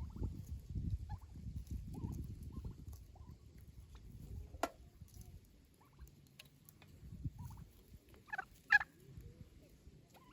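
Domestic fowl calling in short, scattered calls, with a louder burst of calls near the end, over a low rumble in the first half.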